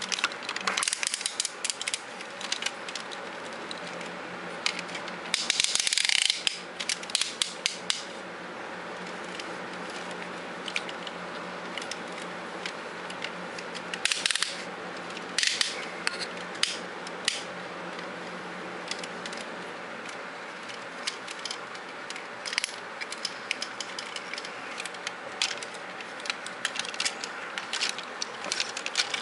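Hard plastic clicking, tapping and rubbing as a Robots in Disguise Optimus Prime action figure is handled and its joints are worked. There are louder scuffs about six seconds in and again around fourteen to fifteen seconds, over a steady low hum.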